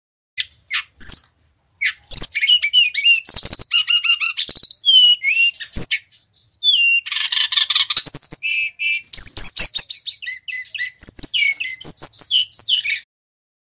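A male Sikatan Rimba Dada Coklat (jungle flycatcher) from Bali singing in full voice. A few short notes come first, then a long, unbroken run of fast, varied whistles and chirps that stops shortly before the end.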